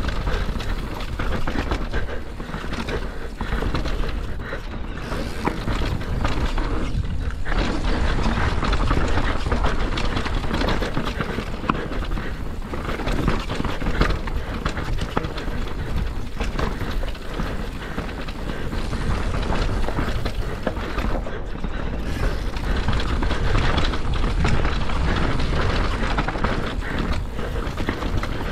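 Mountain bike ride down a rough dirt trail heard from a rider-mounted camera: wind rumbling over the microphone, with a constant clatter and knocking of the bike and tyres over the rough ground.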